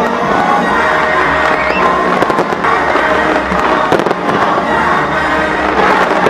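Fireworks show: loud show music playing continuously, with fireworks bursting over it. There is a cluster of sharp bangs a couple of seconds in, another about four seconds in, and more near the end.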